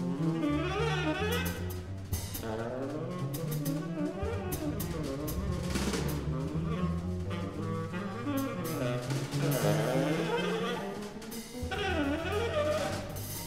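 Big band jazz: saxophones and brass play lines that rise and fall in quick runs over double bass and a drum kit, with cymbal and drum hits throughout.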